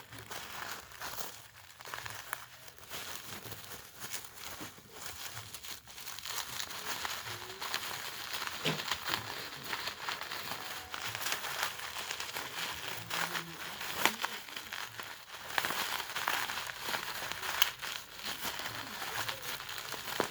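Packaging crinkling and rustling as it is handled and unwrapped, with many small clicks and crackles, busier and louder in the second half.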